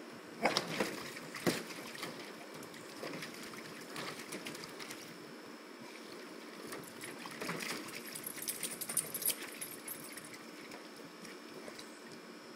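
Springer spaniel puppy's paws tapping and scrabbling on a hard plastic kiddie pool and a wooden deck, with a couple of sharp knocks near the start and a busier run of clicks and scrapes later on.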